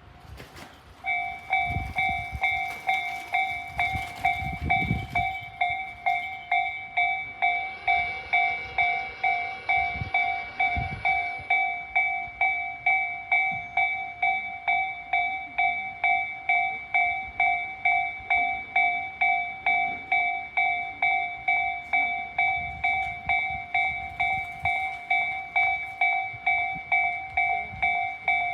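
Japanese railway level-crossing warning bell of the Tobu Tojo type, starting about a second in and ringing in a steady, even rhythm of repeated strikes.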